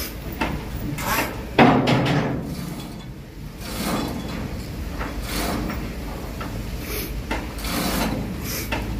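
Irregular knocking and scraping from hand work on a ship's steel hull framing, with one loud thump about a second and a half in.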